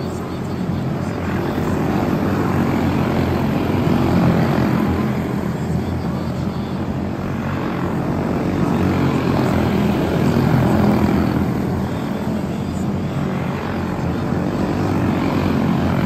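A pack of quarter midget race cars with Briggs & Stratton Animal single-cylinder engines running at racing speed around a small oval, a steady buzzing drone that swells and fades as the cars come past.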